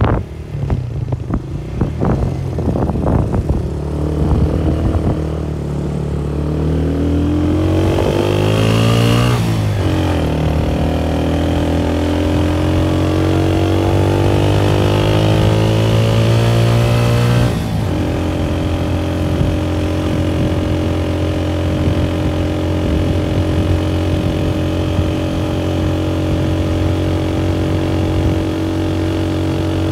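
Motorcycle engine under way, revving up through the gears. Its pitch climbs to about nine seconds in and falls sharply as it shifts up, climbs again until about eighteen seconds in and falls once more, then holds a steady cruising pitch.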